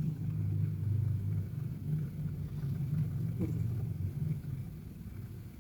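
Persian cat snoring: a steady low rumble that swells and eases slightly, with a light click about three and a half seconds in.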